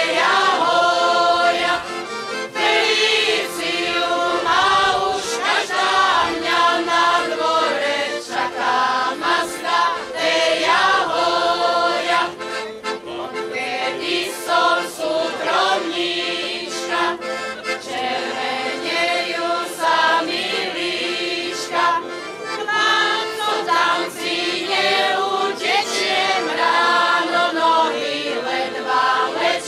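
Slovak folk choir of mixed voices singing a folk song in full voice, accompanied by an accordion.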